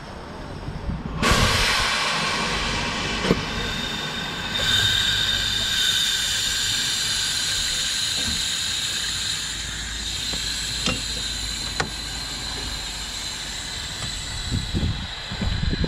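Narrow-gauge steam locomotive standing at the platform, hissing steam steadily; the hiss starts suddenly about a second in. A few sharp metallic clanks come from the coupling between the engine and the carriage.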